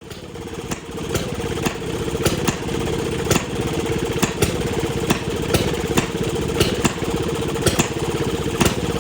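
Small engine running steadily, with sharp ticks about twice a second over a continuous rumble.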